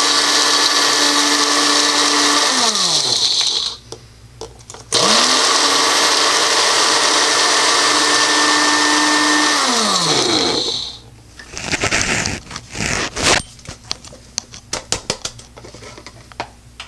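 Magic Bullet blender's motor base running at full speed, spinning the flat blade to grind coffee beans. It winds down with a falling whine about 3 s in, starts again about 5 s in, and winds down again around 10 s. A run of sharp knocks and clicks follows.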